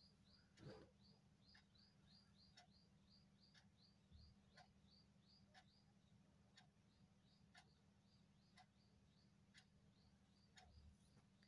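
Near silence: faint regular ticking about once a second, with faint short high chirps repeating about three times a second over a low steady hum, and a soft thump about a second in.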